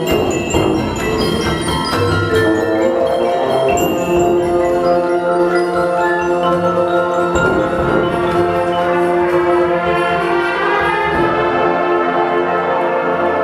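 Instrumental music: struck mallet-percussion notes ringing over sustained pitched tones, played steadily throughout.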